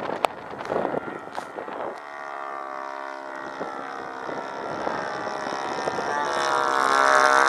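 Sbach 342 aerobatic plane's engine droning steadily overhead, growing louder from about two seconds in as it comes closer. Gusts of wind buffet the microphone at the start.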